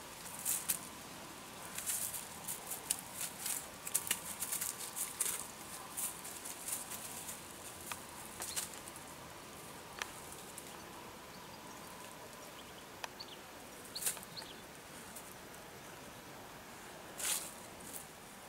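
Ratonero Bodeguero Andaluz dog sniffing hard with its nose in dry leaf litter, following a vermin scent: quick runs of sniffs and leaf crackles in the first several seconds, then sparser ones, with a stronger burst about fourteen seconds in and another near the end.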